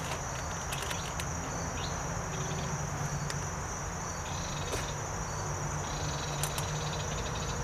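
Outdoor ambience through a security camera's microphone: a steady hiss with a constant high-pitched whine, and a few faint ticks.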